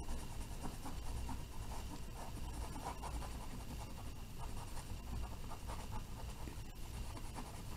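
Cotton swab rubbing over acrylic paint on a canvas, blending a white highlight while the paint is still wet: faint, irregular scratching strokes over a low steady hum.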